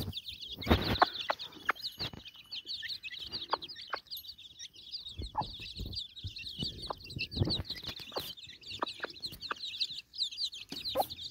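A brood of young chicks peeping constantly in a dense, high-pitched chorus, with the mother hen clucking low now and then among them. A couple of dull bumps come through, the loudest about a second in.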